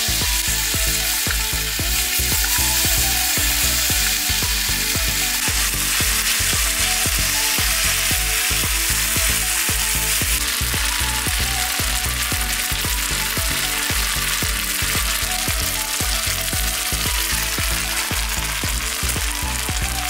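Sliced beef with corn and green beans sizzling steadily in an iron frying pan over a wood fire as the pan is tossed and the food stirred, with background music with a steady beat underneath.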